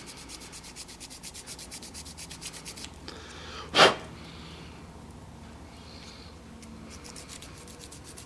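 A nail file rasping quickly back and forth on a SIM card, sanding down the glue on its top, at about eight even strokes a second. The strokes stop about three seconds in, a single short loud whoosh follows just before four seconds, and then only fainter, intermittent rubbing.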